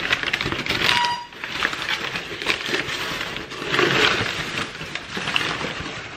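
Rustling and crinkling of a ribbed wrapping as a decorative glass jar is pulled out of it, with small scrapes and clicks of handling.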